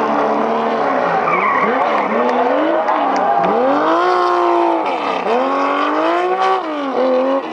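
Porsche 911 rally car's air-cooled flat-six running hard at high revs. Its pitch rises and falls several times, dipping deeply about three and a half seconds in and again about five seconds in, over tyres skidding.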